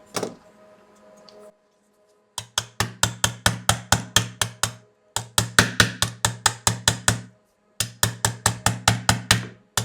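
Rapid metallic tapping on the vacuum motor's aluminium turbine, about seven strikes a second, in three bursts of about two seconds and a short fourth at the end: a loose, broken fan blade being knocked out of the turbine.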